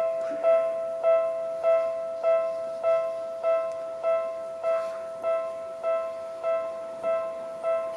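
Railway level-crossing warning bell ringing: an electronic bell struck about every 0.6 seconds, each note fading before the next, the signal that a train is approaching and the crossing is closing.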